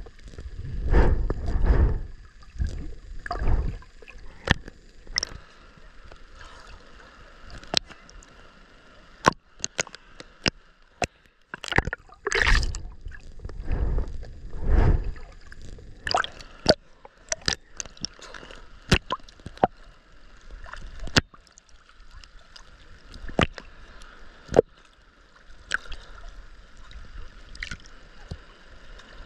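Water sloshing and gurgling around a submerged camera during swimming strokes, with heavy low surges near the start and again about halfway through. Many sharp clicks and taps are scattered throughout.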